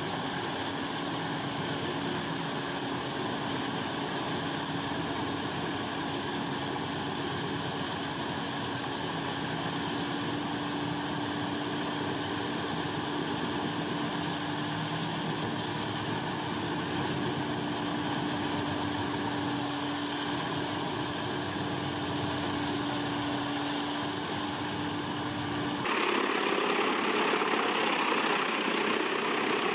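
Eschlböck Biber 92 wood chipper running steadily while chipping brush and logs: an even machine drone with a constant hum. About 26 seconds in the sound switches abruptly to another, somewhat louder chipper, a Komptech Chippo 8010, shredding logs.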